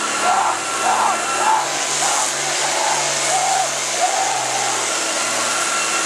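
Diesel engine of an International Harvester farm tractor running steadily at full power under heavy load while pulling the sled in a tractor pull.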